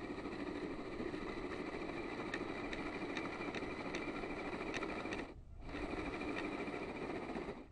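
1/10-scale RC crawler on an RC4WD Trail Finder chassis, its electric motor and geared drivetrain whining steadily as it drives through snow, with a few light clicks. The sound drops out briefly about five seconds in, then resumes.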